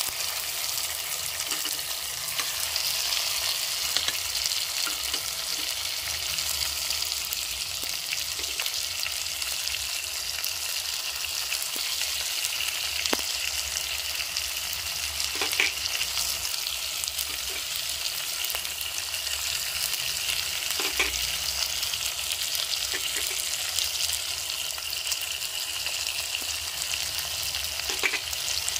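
Chopped tomatoes with onion and curry leaves frying in hot oil in a pot: a steady sizzling hiss, with a few light knocks now and then.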